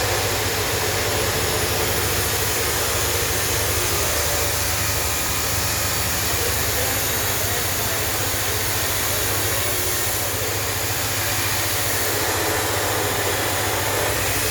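Husqvarna 353 two-stroke chainsaw engine running steadily at an even speed, without revving.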